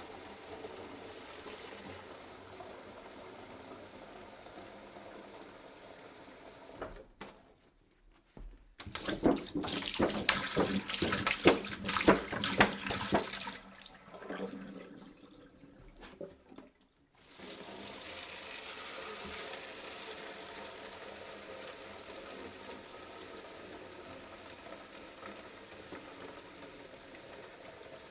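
Water poured from a jug: a loud, splashy pour in the middle, trailing off, between stretches of steady running-water hiss.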